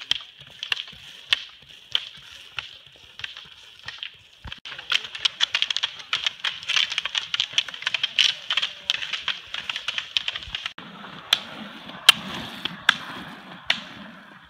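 Ski pole tips clicking sharply and irregularly on wet asphalt over a steady hiss of rollerski wheels on the wet road. The clicks come thick and overlapping in the middle as several skiers pass, then sparser after a change a little past halfway.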